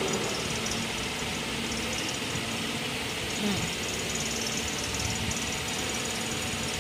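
Steady mechanical hum with a fan-like hiss from running machinery, unchanging throughout, with one faint brief sound about three and a half seconds in.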